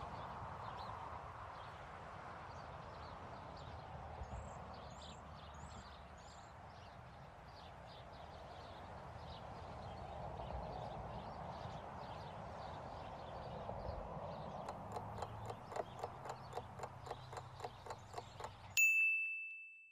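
Faint street ambience, then rapid clock ticking for the last few seconds, ending in a single bright ding: a countdown timer running out.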